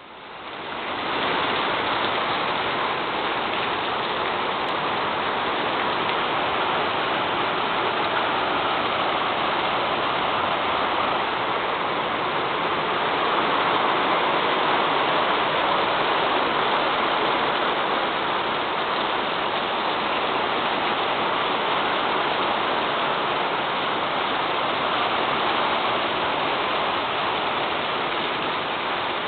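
Heavy rain pouring down onto a paved driveway: a steady, even hiss that fades in over the first second and holds without a break.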